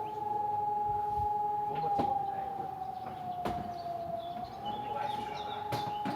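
SES 1200 electronic civil-defence siren sounding the test alarm: a steady howling tone that slides down in pitch a little past three seconds in and climbs back up about a second later. A few sharp knocks sound over it.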